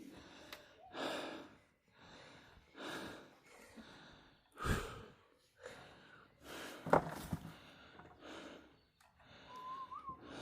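Heavy breathing: a string of loud breaths, about one every second and a half.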